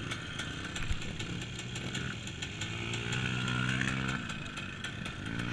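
Single-cylinder trail motorcycle engine running, with a rise in revs about three seconds in that drops away after a second or so.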